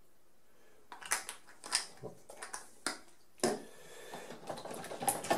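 Plastic film reel being moved by hand inside a developing tank of rinse water, to spread the wetting agent over the film: a string of sharp clicks and taps starting about a second in, the loudest about three and a half seconds in.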